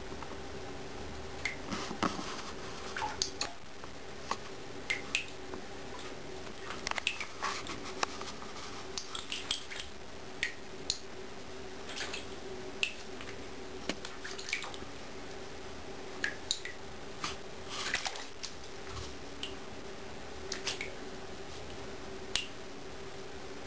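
A Savannah cat's paws splashing in shallow water in a bathtub as it paws at goldfish: scattered small splashes, drips and taps at irregular intervals, over a steady hum.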